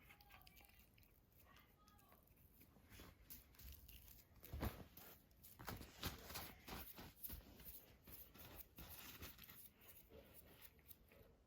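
A cat chewing and tearing at dried pollack, with faint crunching clicks that come thickest from about three seconds in.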